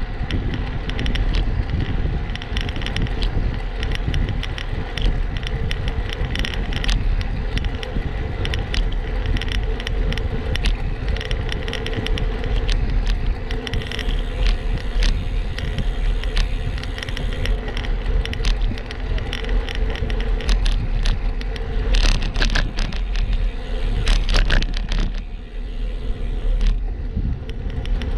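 Wind rushing over the bike-mounted camera's microphone and tyre noise on the asphalt as a road bike coasts downhill at speed, with sharp rattles and knocks from rough, patched pavement about three-quarters of the way through.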